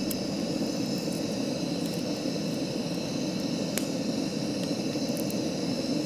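Portable gas camping stove burner running steadily under a kettle: an even, low hiss. A few faint clicks come over it.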